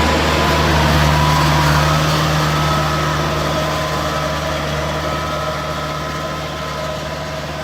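A vehicle engine running at a steady speed, slowly growing quieter as it moves away.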